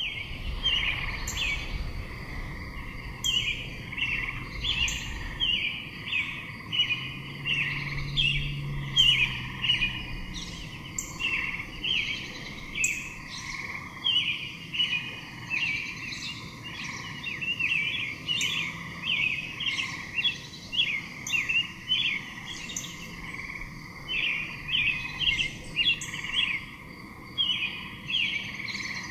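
Bird calling in quick repeated chirps, about two a second, with no break, over a steady faint background drone.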